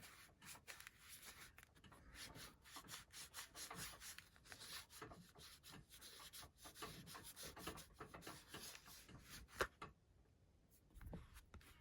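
Faint, irregular rubbing and scraping on a tablet's plastic case as sticky sticker residue is cleaned off. It stops for about a second near the end.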